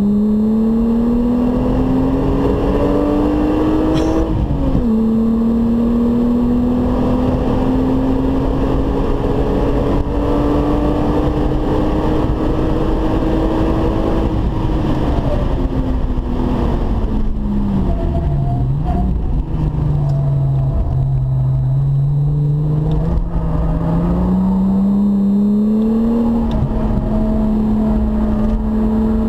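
VW Golf 3 VR6 engine heard from inside the car at full throttle on a race track. Its pitch rises, drops sharply at an upshift about four seconds in, then climbs slowly through a long pull. About halfway through it falls away as the car slows for a corner, then rises again under acceleration out of it.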